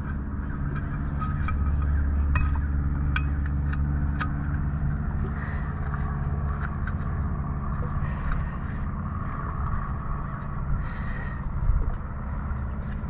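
A steady low motor hum runs throughout. Over it come scattered sharp metallic clicks and taps from hand tools as a new aluminium bracket anode is fitted to the outboard bracket.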